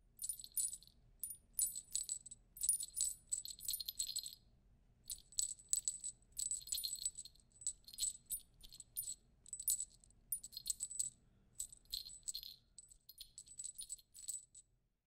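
Small jingle bells shaken in quick, irregular jingles, bright and ringing.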